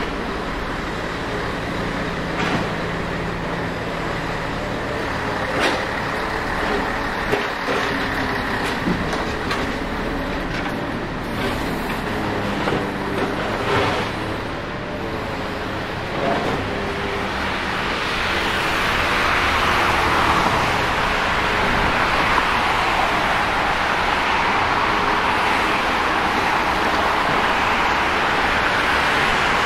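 Road traffic on a city street: engines of cars, buses and trucks running and passing, with scattered short clicks and knocks. About two-thirds of the way in, a louder steady hiss sets in.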